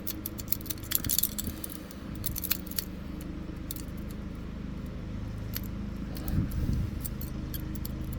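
A dimple pick raking the pins of a Britanium dimple shutter lock under light tension from a Z-bar tension wrench: quick metallic clicks and scrapes, thickest in the first few seconds, then more scattered.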